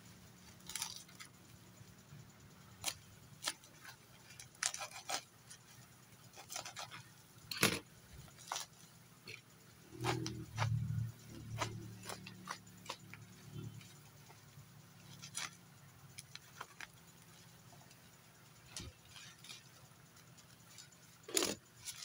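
Plastic parcel wrapping rustling and crackling in short, scattered sounds as it is torn open by hand, with a low hum for a few seconds about halfway through.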